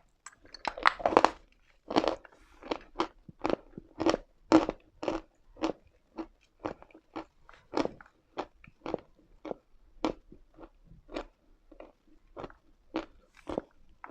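Close-miked chewing of chalk: a steady run of crisp crunches, about two a second, loudest in the first couple of seconds and slightly softer toward the end.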